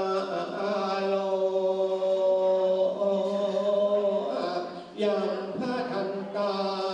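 Buddhist chanting in Pali: voices hold long, drawn-out notes on a near-steady pitch, with a short break for breath about four and a half seconds in.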